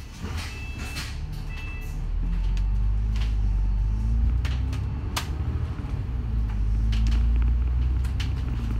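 New World First Bus engine pulling away and accelerating: a low rumble that grows about two seconds in, with its pitch rising twice. Many short rattles and clicks from the bus body run through it, and two brief beeps sound near the start.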